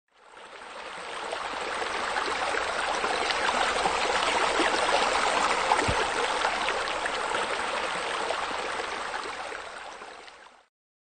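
Steady rush of running water, fading in over the first couple of seconds and fading out near the end, with one short click about halfway through.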